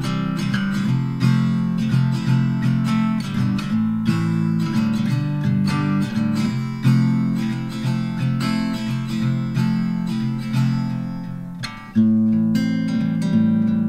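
Background music on acoustic guitar, picked and strummed at a steady pace, with a brief fall in level before a fresh strummed chord near the end.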